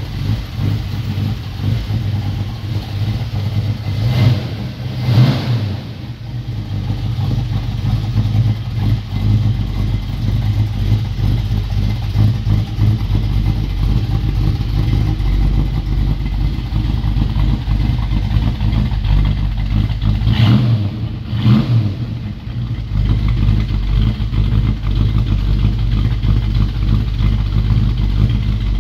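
1965 Ford Mustang fastback's engine idling steadily, blipped up twice, about four seconds in and again about twenty seconds in.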